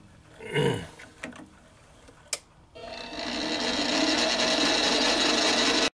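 Mini lathe starting up about three seconds in, spinning a brass cylinder in its four-jaw chuck: the motor and drive whine rises over about a second, then runs steadily. It is preceded by a sharp click and cuts off suddenly just before the end.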